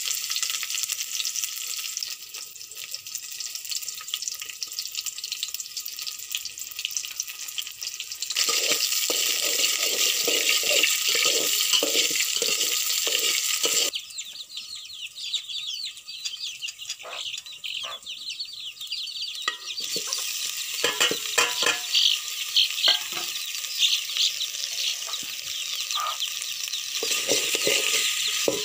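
Dried fish and onions sizzling in hot oil in an aluminium pot over a wood fire, with a spoon stirring and scraping against the pot in bursts.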